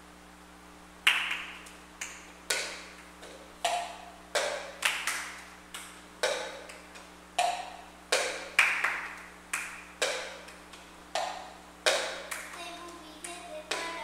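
Children clapping and knocking plastic cups on a tiled floor in the cup-game rhythm: sharp, echoing hits beginning about a second in, one to two a second in a repeating pattern.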